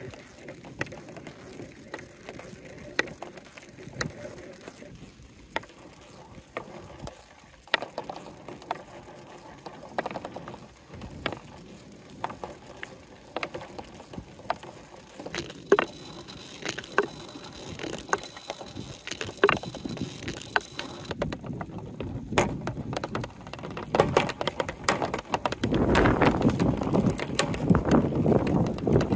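Marbles rolling through a plastic marble run: scattered clicks and knocks as they rattle through a corrugated hose and along plastic gutters, swelling to a louder, continuous rolling rumble near the end.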